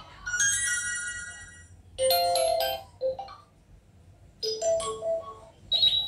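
Notification tones previewed one after another through a Tecno Spark 7T smartphone's speaker: a high chime held for about a second and a half, then several shorter melodic jingles with brief gaps between them.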